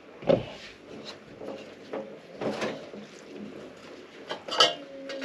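Kitchenware being handled: a knock as a glass pot lid is set down on the worktop, then a few clinks and clatters of a stainless steel pot and sieve, the last one ringing briefly.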